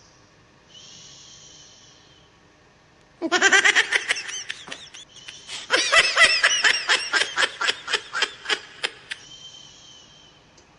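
A person laughing hard in two bursts of rapid high-pitched pulses that trail off. Before and after the laughter, a sleeper's breath whistles faintly.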